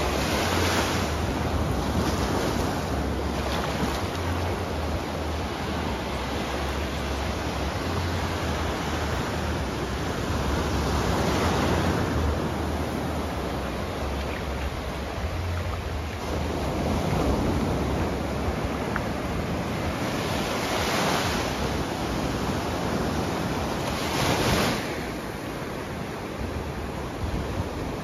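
Small Atlantic surf breaking and washing up a sandy beach, a steady wash that swells every few seconds as each wave breaks. A low rumble of wind on the microphone runs under it.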